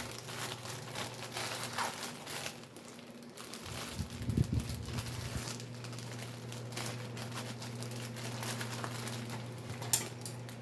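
Plastic packaging crinkling and rustling as it is handled, over a steady low hum, with one sharp tap near the end.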